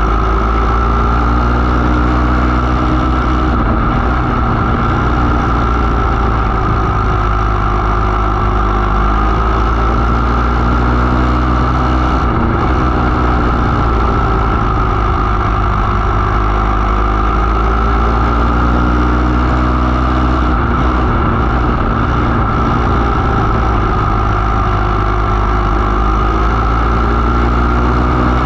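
500 mini sprint car's engine running at racing speed, heard up close from on board; the note rises and falls every few seconds as the car goes through the straights and turns of the oval. Loud and unbroken.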